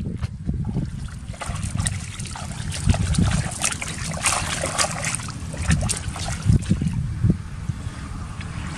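Wind buffeting the microphone, with irregular splashing and sloshing of shallow muddy water as a person wades and gropes through the mud by hand.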